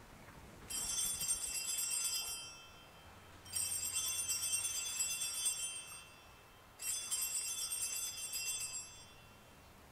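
Altar bells rung three times to mark the elevation of the chalice at the consecration. Each ringing is a high, jingling shake of about two seconds.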